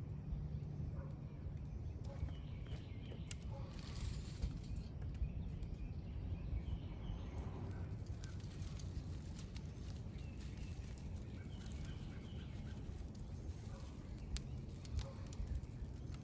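Birds chirping faintly now and then over a steady low outdoor background rumble, with a few light clicks.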